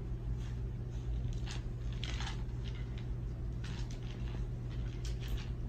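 Kitten purring steadily close to the microphone, with a few brief soft rustles.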